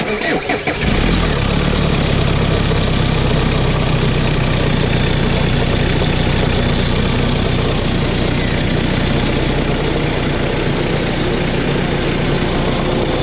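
Hyundai Starex engine cranked and started, catching within about a second, then idling steadily. A rattle runs in the engine bay, which the mechanic traces to loose covers.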